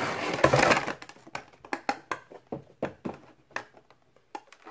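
Clear plastic blister tray crinkling and clicking as it is slid out of a cardboard window box: a dense crackle in the first second, then scattered clicks that die away.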